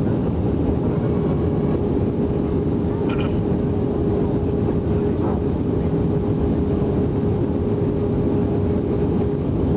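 Steady engine and airflow noise heard inside the cabin of an Airbus A320 descending on approach with flaps extended, with a faint steady hum tone held throughout.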